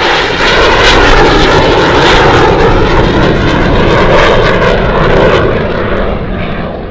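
Twin-engine F/A-18 fighter jet climbing away after take-off: loud, ragged jet noise with a crackling edge that starts fading and dulling about five and a half seconds in as the jet draws away.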